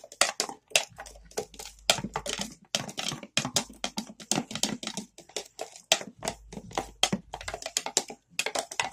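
Metal spoon stirring glue and water in a small plastic tub: quick, irregular clicks and scrapes of the spoon against the tub's sides.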